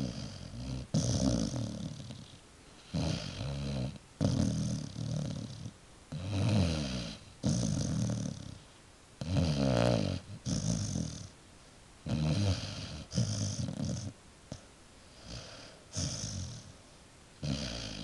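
Basset hound snoring in deep sleep, one snore on each breath, roughly one a second, with short quiet gaps between.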